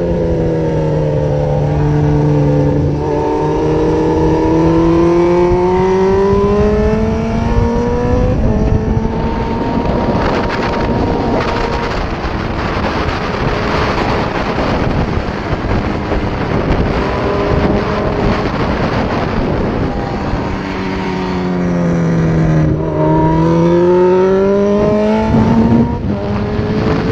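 Suzuki GSX-R1000 K6 inline-four engine at speed on a race track, heard from the rider's helmet with heavy wind rush. The engine pitch climbs under acceleration over the first several seconds, holds high while wind noise dominates, then drops as the bike slows about three-quarters of the way through and climbs again as it accelerates out.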